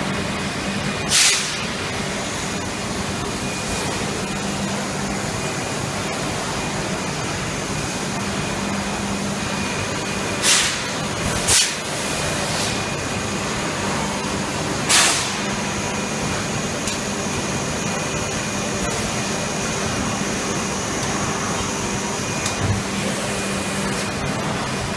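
Steady machinery noise from a PET preform injection moulding system: a constant hum and hiss carrying a few faint steady tones. It is broken by short, sharp hisses, one about a second in, two close together around ten to twelve seconds in, and one more at about fifteen seconds.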